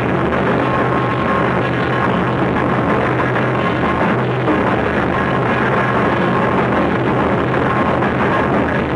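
Live Awa Odori festival music from a passing troupe's band: large hand-held drums beating, with other instruments holding steady notes over them, loud and continuous.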